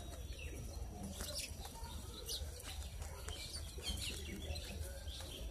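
Sparrows chirping at a feeder: many short, scattered chirps with no steady rhythm, over a steady low rumble.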